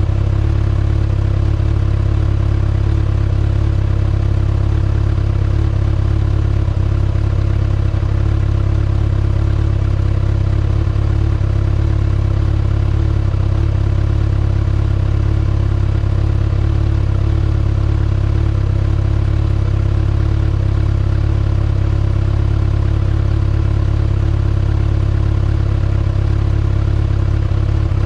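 Stock exhaust of a 2019 Kawasaki ZX-6R's inline-four engine running at a steady, unchanging engine speed.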